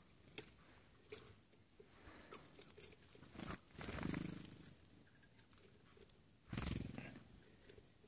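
Small birds, a nuthatch among them, fluttering onto and off an outstretched hand to take sunflower seeds. There are light scattered ticks at first, then two short bursts of wingbeats, about three and a half seconds in and again near six and a half seconds.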